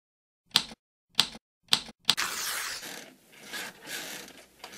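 A title sound effect: four sharp typewriter key strikes about half a second apart, then a longer rasping noise of paper tearing that rises and falls.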